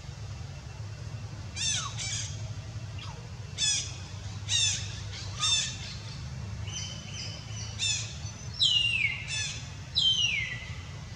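A run of shrill squealing animal calls, about eight of them, starting a couple of seconds in; several drop steeply in pitch, and the last two near the end are the longest and loudest falling squeals. A steady low hum runs underneath.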